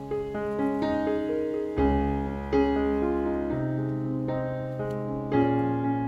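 Background music: a solo piano playing slow notes and chords, each note struck and left to ring.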